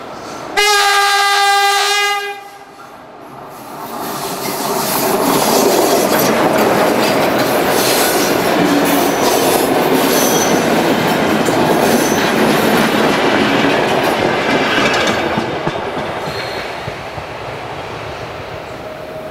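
Diesel locomotive sounds its horn once, a single steady note of about a second and a half, then passes close by hauling passenger coaches: engine noise and wheels clattering over the rail joints, building up and easing off near the end as the train moves away.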